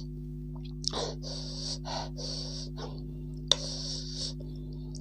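Close-up eating sounds: chewing and breathing, with a steel spoon clicking sharply against the plate about a second in and again, loudest, past the middle. A steady low hum sits underneath throughout.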